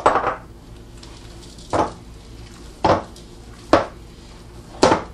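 Meatloaf mixture of ground beef and oatmeal being mixed by hand in a mixing bowl, with five short, sharp handling sounds about a second apart.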